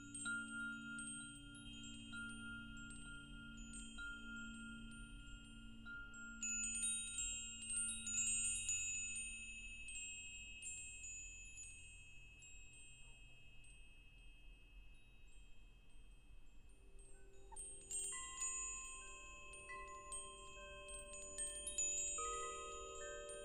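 Wind chimes tinkling, struck in irregular flurries whose clear tones ring on and overlap. Fresh clusters of strikes come about six seconds in and again near eighteen and twenty-two seconds in, with deeper ringing tones beneath the high ones.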